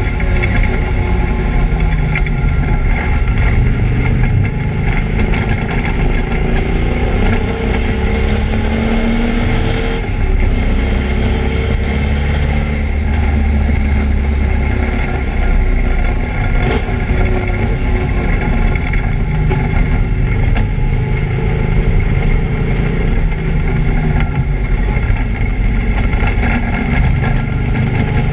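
Camaro race car's engine running continuously with a misfire, its pitch rising and falling as it accelerates and lifts.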